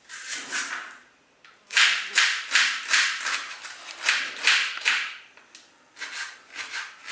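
Knife chopping an onion, about two or three quick strokes a second, with a short pause about five seconds in.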